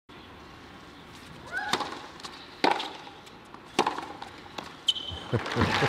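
Tennis rally on a hard court: four sharp racket strikes on the ball, about a second apart. Then crowd applause swells and is loudest near the end as the point finishes.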